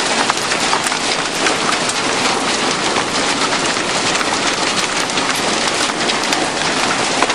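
Large hailstones pelting down in a loud, dense, steady clatter, with countless separate sharp hits over a continuous hiss.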